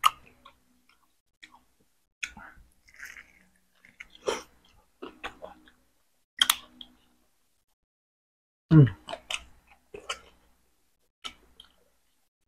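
Close-miked chewing and eating sounds of a person eating boiled chicken: scattered wet clicks and smacks. There is one louder mouth sound about nine seconds in.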